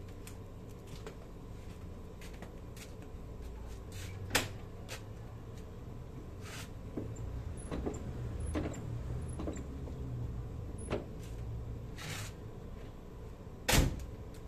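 Clicks and knocks from a car's brake being worked over a steady low rumble, with a sharp knock about four seconds in and a louder one near the end. No squeal from the brake spring is heard: with the spring moved down it stays quiet.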